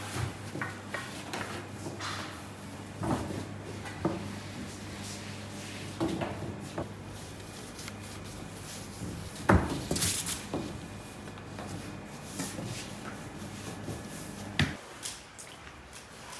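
Long thin wooden rolling pins rolling out dough on a table, with scattered wooden knocks and taps, the loudest about nine and a half seconds in. A steady low hum runs underneath and stops near the end.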